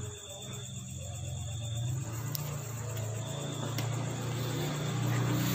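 A low, steady engine hum that grows gradually louder, with crickets chirping and a few faint clicks.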